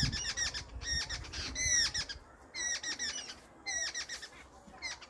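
A bird calling: harsh, repeated chirps in quick runs of two or three, growing fainter after about two seconds.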